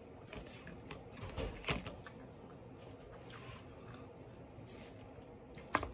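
Quiet chewing of food, with faint rustles and clicks from a white paper takeout carton being handled. One sharper click comes near the end.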